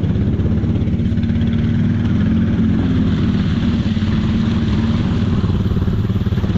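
ATV engine running steadily under load while the machine works through deep water, its pitch rising slightly about two seconds in.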